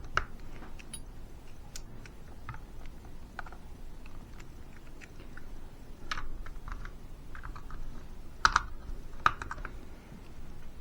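Scattered light clicks and taps of a precision screwdriver and its small bits being handled and changed. Two sharper clicks come about eight and a half and nine seconds in.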